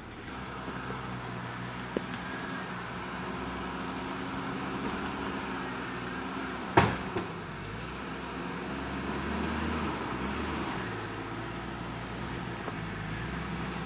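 Jeep Cherokee SUV's engine running at low speed as it crawls over rock ledges, a little louder about nine seconds in, with one sharp, loud knock about seven seconds in.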